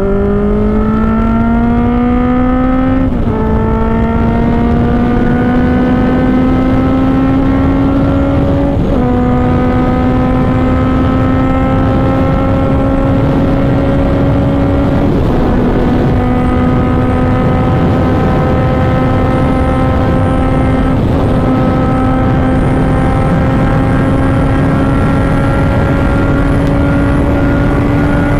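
A vehicle's engine pulling up through the gears. Its pitch climbs slowly and drops a step at each of four shifts, over steady road noise.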